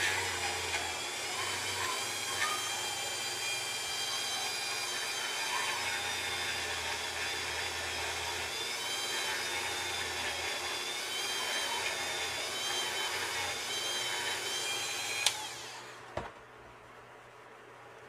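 Dremel rotary tool at its lowest setting, a small bit grinding plastic from the side of an action figure's chest: a steady high whine whose pitch wavers slightly as the piece is pressed on. Near the end it switches off with a click and winds down, followed by a light knock.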